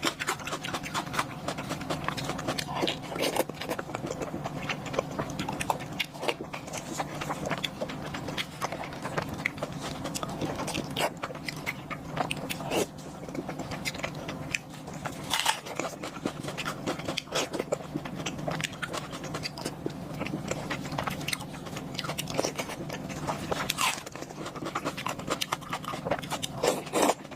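A person chewing and biting food close to the microphone: many short, wet mouth clicks throughout, over a steady low hum.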